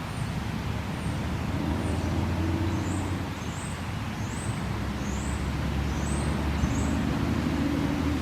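Low, steady rumble of a vehicle engine and road traffic, with a small bird giving a series of short high chirps, about nine of them, a little over one a second, growing louder toward the end.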